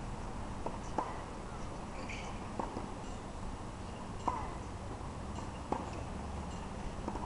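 Tennis balls popping sharply, four single knocks about a second and a half apart, over a steady low rumble.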